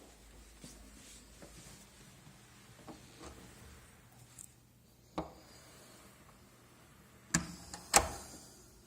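Handling at a wooden door and its lock: faint rubbing, a single sharp click about five seconds in, then two sharp knocks near the end, the second the loudest.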